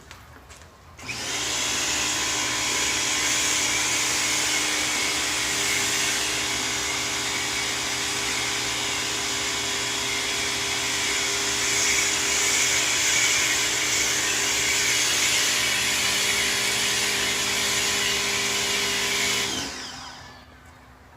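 Ryobi 1600 PSI electric pressure washer starting about a second in, its motor and pump running steadily with a hiss of spraying water, then shutting off shortly before the end.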